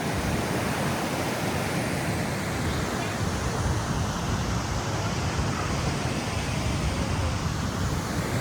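Steady rush of a fast-flowing mountain river, running high after rain.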